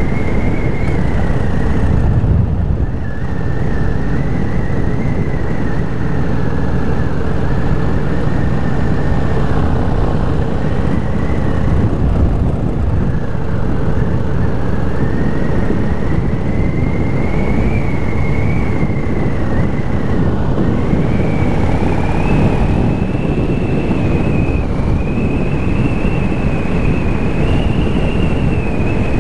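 Cruiser motorcycle under way: the engine running steadily over dense low road and wind noise, with a thin whine whose pitch slowly rises and falls as the speed changes, dipping about two-thirds of the way through and then climbing higher.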